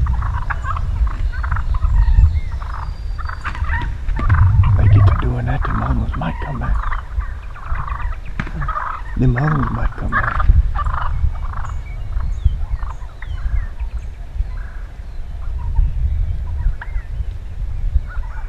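Several wild turkeys gobbling again and again in short rattling bursts, over a steady low rumble.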